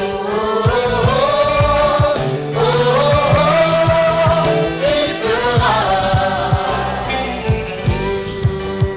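Live gospel worship song: singers with a choir over a band with a steady drum beat.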